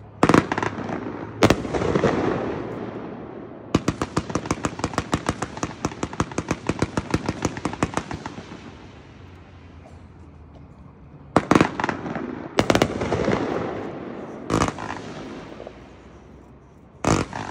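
A 93-shot, 500-gram consumer fireworks cake, World Class Buck Wild, firing. Two sharp bangs open it, then comes a fast, even run of shots, several a second, for about four seconds. A few more single bangs follow near the end.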